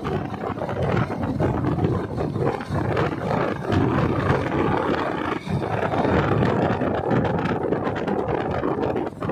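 Motorcycle ride: a steady, uneven rumble of wind buffeting the microphone over the running engine and road noise.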